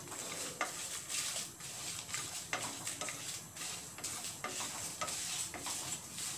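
Wooden spatula stirring whole spices and dried red chillies as they roast in a non-stick frying pan, in repeated scraping strokes about two a second over a faint steady sizzle.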